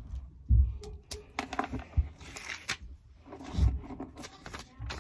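Close-up scratching and rustling of paper being handled, with a few dull bumps against the microphone.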